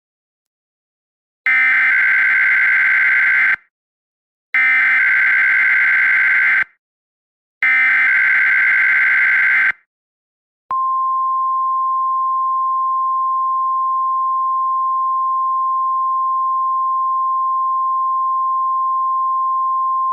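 Emergency Alert System SAME header: three bursts of warbling digital data tones about two seconds each, then a single steady high alert tone starting about ten seconds in. Together they signal the start of an emergency alert, here a winter storm warning.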